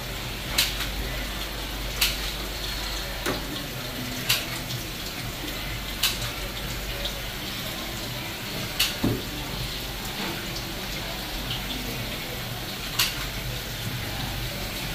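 Tap water running steadily into a stainless steel sink, with about eight sharp knocks scattered through it, the loudest sounds.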